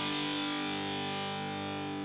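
Intro theme music: a distorted electric guitar chord held and ringing out, slowly dying away.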